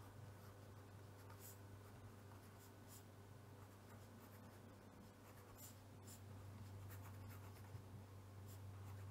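Faint scratching of a pen writing on paper, a little louder in the second half, over a low steady hum.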